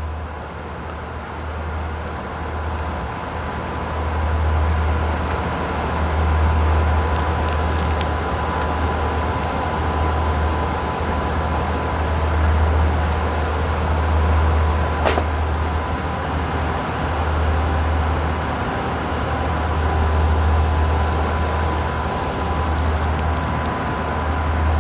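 Steady machine-room noise of transmitter cooling fans: a low rush of air that swells and fades, with a thin steady whine above it. One sharp click comes about fifteen seconds in, with a few faint ticks of handling.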